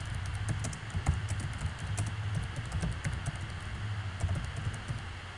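Computer keyboard keys clicking in irregular taps, over a low steady hum.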